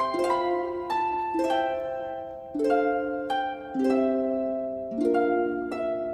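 Background music: gently plucked harp-like notes ringing and fading in a flowing arpeggio pattern.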